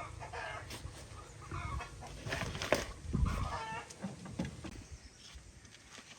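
Chickens clucking several times in short calls, with a sharp knock about two and a half seconds in.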